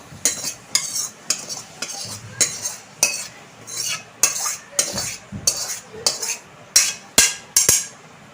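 Spatula scraping and knocking against a kadai as cooked rice and fried vegetables are stirred together, in quick repeated strokes about twice a second.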